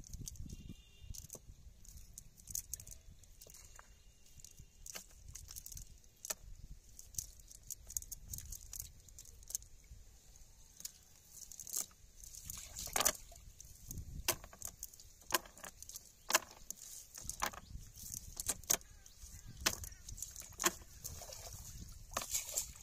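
Irregular sharp clicks and taps as a cast net is handled over a wooden dugout boat, its weighted edge and the catch knocking against the hull; the taps grow more frequent and louder in the second half.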